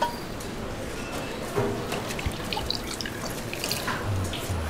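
Small wet clicks and drips as raw lamb shanks are packed into a cast-iron pot, then veal stock is poured over them near the end.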